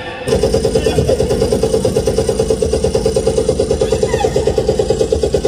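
A loud, steady buzzing sound effect played over the stage sound system, pulsing about ten times a second. It starts suddenly and cuts off abruptly near the end.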